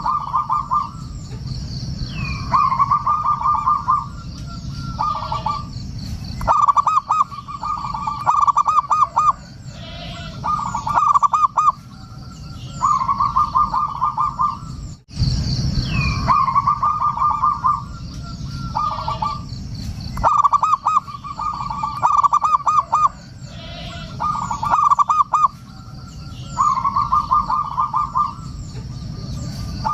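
Zebra dove (perkutut) cooing in repeated phrases, each a quick run of soft staccato notes lasting about a second, with fainter high chirping behind.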